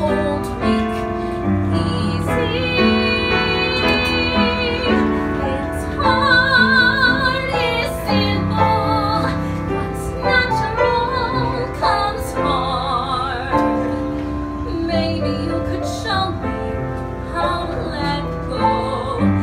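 A woman singing a Broadway show tune with vibrato on held notes, accompanied by piano.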